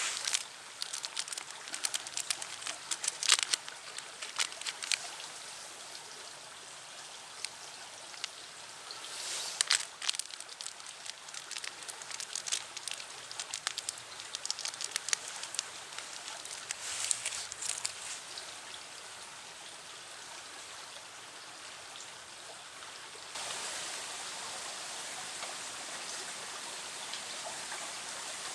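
Wood pellets burning in a small steel fire stand: a steady hiss with scattered crackles and pops, bunched at a few moments. About 23 seconds in the crackling stops and a steadier, slightly louder hiss takes over.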